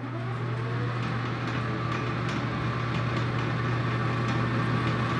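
Metal lathe running with a steady motor hum while a countersink in the tailstock chuck cuts into the end of a spinning round metal bar.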